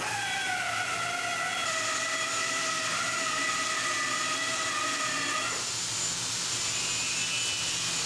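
Hydraulic unit of an NSB-607 3-in-1 busbar punching, cutting and bending machine whining under load, its pitch sagging slightly, for about five and a half seconds before the whine stops. A high hiss sets in about two seconds in and carries on after the whine ends.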